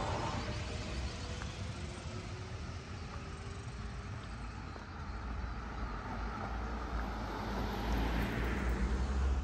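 Road traffic: a car driving past, its noise growing louder over the last few seconds and then cutting off abruptly at the end.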